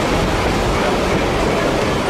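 Durango & Silverton narrow-gauge steam train running, a steady, even noise of the train moving along the track.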